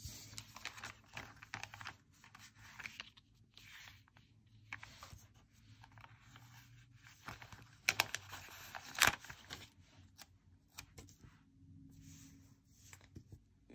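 Rustling and crinkling of a paper sticker sheet and planner pages being handled, with a sticker pressed onto the page. Irregular handling noise with scattered sharp clicks, the loudest about nine seconds in.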